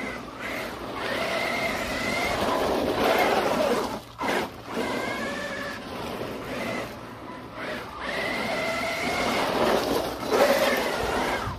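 Losi Super Baja Rey electric RC truck driving hard: its brushless motor and drivetrain whine, rising and falling in pitch with the throttle, over tyre noise on the gritty surface, with a brief lull about four seconds in.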